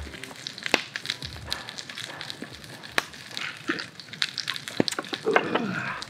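A thick wagyu steak sizzling in a skillet over a wood campfire, with scattered pops and crackles from the fat and the fire. A short falling sound comes near the end.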